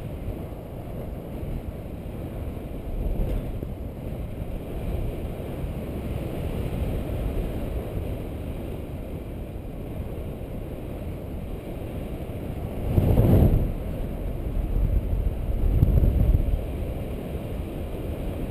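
Airflow buffeting the camera microphone of a paraglider in gliding flight: a steady low rumble, with two stronger gusts in the last third.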